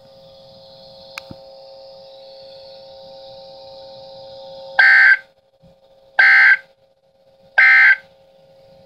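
Steady faint hum and hiss of an open weather-radio channel, then three short, loud bursts of digital data tones about 1.4 s apart. These are the SAME end-of-message code of the Emergency Alert System, closing the NOAA Weather Radio weekly test.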